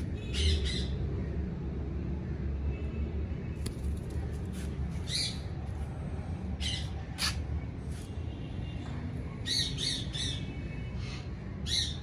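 Indian ringneck parakeet giving short, sharp squawks at irregular intervals, with a quick run of three about ten seconds in, over a steady low rumble.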